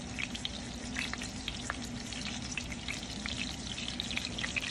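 Brook trout fillets frying in hot oil in a pan: a steady sizzle dotted with many small crackles and pops.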